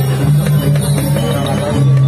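Balinese gamelan music: a loud held low tone that breaks off and comes back every half second or so, with sharp strikes over it.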